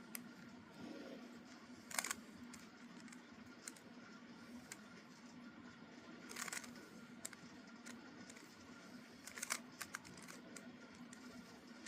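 Plastic Rubik's Cube layers being turned by hand, giving scattered sharp clicks. The loudest come about 2, 6.5 and 9.5 seconds in, over a faint steady hum.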